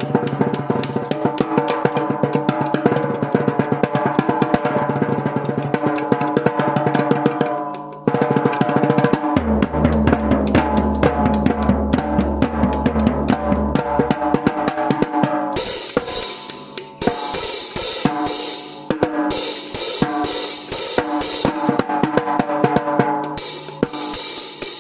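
Heavy-metal drumming on a drum kit: fast, dense rolls across the drums, with rapid bass-drum strokes running together for several seconds near the middle. From about fifteen seconds in, cymbals come in over the drumming, with a few brief breaks.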